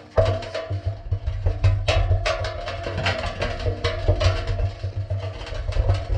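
Background music with a heavy bass and drum beat, starting and stopping abruptly.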